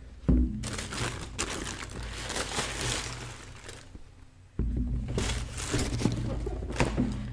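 Wrapping paper crinkling and rustling as sneakers are lifted out of their shoebox, with a knock about a third of a second in as a shoe is set down on a wooden table.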